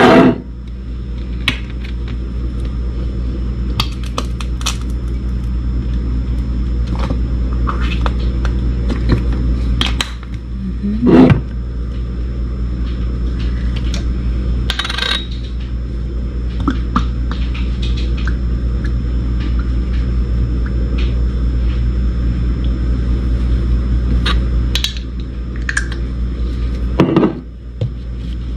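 Sauce bottles and a small glass bowl knocking and clinking on a kitchen countertop while mayonnaise and chili sauce are squeezed and shaken into the bowl, scattered sharp clicks with a few louder handling noises. A steady low hum runs underneath.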